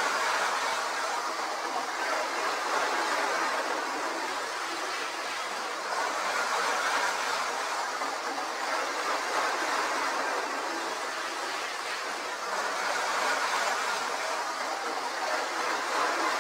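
Hornby OO-gauge model electric trains running at full speed on the track, a steady whirr of motors and wheels that swells and fades every few seconds as a train passes close by.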